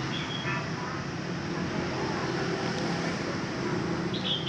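Short high bird chirps, once just after the start and again near the end, over a steady low rumble like traffic or engine noise.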